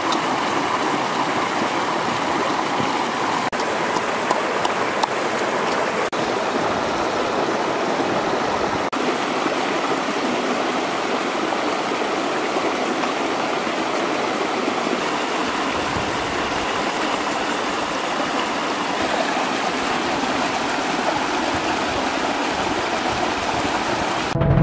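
Shallow rocky stream flowing steadily, water rushing over stones in a small cascade. The sound breaks off for a split second three times in the first ten seconds.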